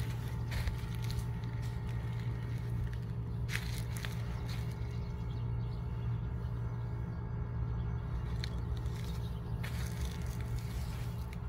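A steady low mechanical hum, like a motor running, with a few light clicks over it.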